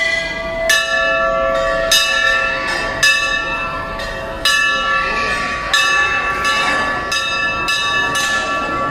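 Hanging brass temple bells rung by hand, about ten strikes at irregular intervals of roughly a second. Each strike rings on into the next, and several bells of different pitches sound.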